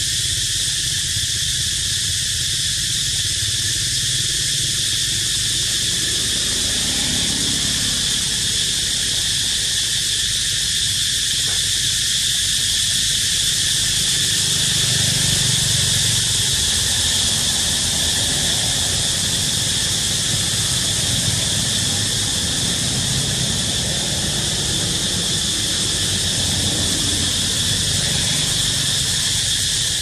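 Chorus of cicadas buzzing loudly and without a break, a high, even drone with a low rumble underneath.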